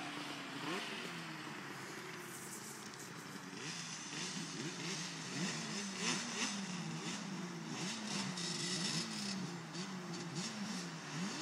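Several distant two-stroke quad engines, Yamaha Banshees, revving up and down over one another, pitch repeatedly climbing and dropping.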